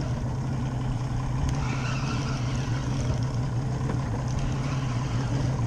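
Boat engine running steadily at trolling speed, a constant low hum.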